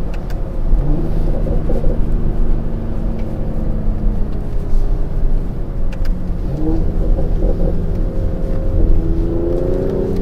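Mercedes-AMG GLE 53 Coupe's 3.0-litre turbocharged inline-six on the move, its note stepping up in pitch about a second in and again past the middle, then climbing near the end as it accelerates, over steady road rumble.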